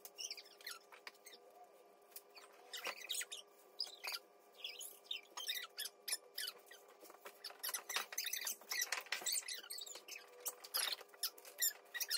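Close-up eating sounds: chewing with many small wet mouth clicks and smacks, scattered irregularly, over a faint steady hum.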